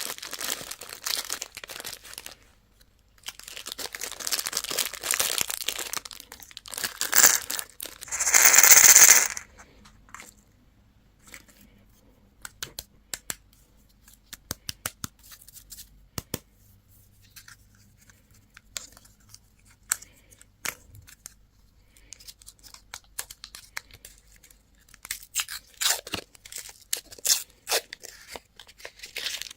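A candy wrapper being crinkled and torn open, with a loud rip about eight or nine seconds in. Scattered light clicks and taps follow, then more crinkling near the end.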